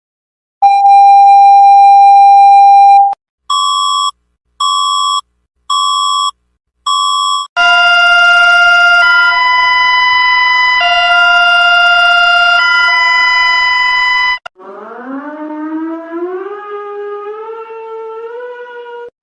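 Emergency-alert tones. After a short silence there is a loud steady tone for about two and a half seconds, then five short beeps. Next comes a two-tone alarm that switches back and forth between two chords every second and a half or so. Near the end a quieter siren winds up slowly in pitch.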